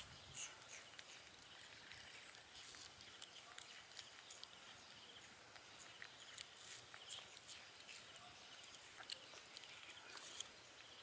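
Two baby macaques chewing and biting apple slices: faint, irregular small crunches and wet clicks.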